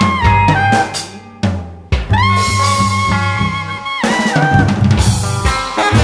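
Small jazz group playing: a busy drum kit with snare and rimshot hits under long held lead notes that bend downward, over changing bass notes.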